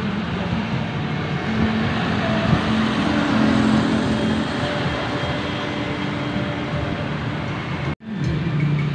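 Street traffic: motorbike engines and a light truck passing steadily. The sound cuts out for an instant near the end.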